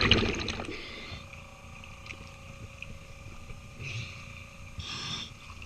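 Underwater sound of a diver's breathing and movement: a rush of water and bubbles in the first second, then two short bubble bursts about four and five seconds in, over a faint steady hum.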